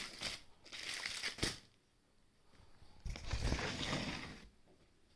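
Plastic packaging crinkling and rustling as items are handled and unpacked, in two bursts: the first ends in a sharp click about a second and a half in, and the second, about three seconds in, has dull bumps of handling under it.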